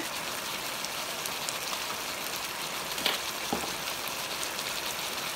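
Chicken gravy sizzling and bubbling steadily in a pot on high heat as it reduces, with a couple of faint taps about three seconds in.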